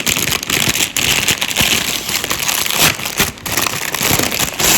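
Plastic food packaging being handled and crinkled, loud and irregular with many sharp crackles; it starts abruptly.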